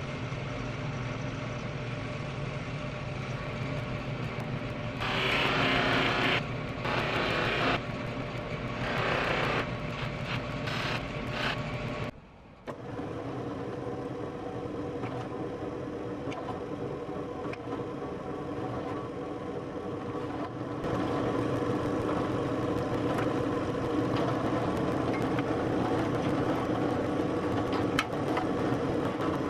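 Bench buffer motor running steadily, with a loud hiss several times in the first twelve seconds as the steel knife blade is pressed against the spinning buffing wheel. After a brief drop, a drill press runs steadily, drilling pin holes through wooden handle scales clamped to the tang; it grows louder about twenty-one seconds in.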